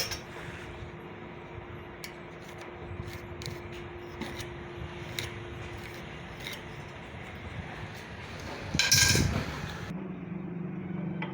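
Scattered light clicks and knocks of tools and wood being handled, over a steady faint hum, with one louder scrape about nine seconds in.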